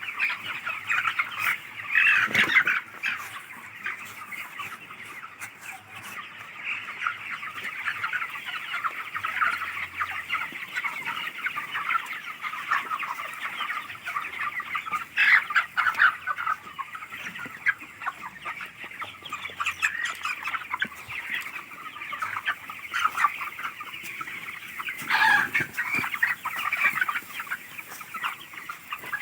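A large flock of farmed chickens clucking and calling together in a dense, continuous chorus, with a few louder calls standing out now and then.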